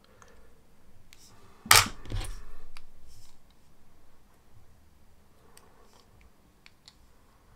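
Small 3D-printed plastic test pieces handled and clicked against the jaws of a digital caliper: one sharp click a little under two seconds in, a second of light scraping, then a few faint ticks near the end.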